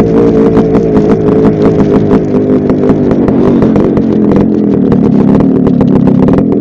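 Yamaha RX100's two-stroke single-cylinder engine running while riding, its pitch easing down over the first few seconds and then holding steady, with a brief break near the end.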